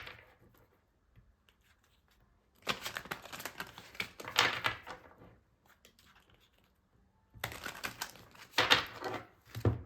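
A deck of tarot cards being shuffled by hand: two bouts of rapid papery clicking and flapping, each a couple of seconds long, with a pause of about two seconds between them.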